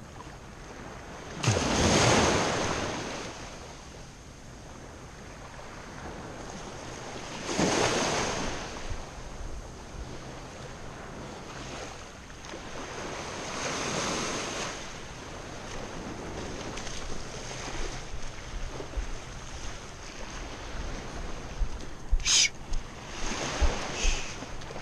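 Small surf waves washing in at the water's edge, one every six seconds or so, with wind on the microphone. Near the end come a few short, sharp splashes in the shallows.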